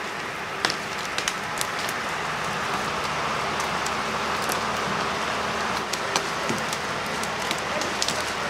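Steady engine noise of a tractor working nearby, with irregular crackles of dry leaves and twigs underfoot as someone walks.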